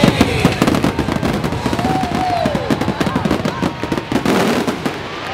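A fireworks barrage: dense, rapid bangs and crackles one after another, thinning out toward the end.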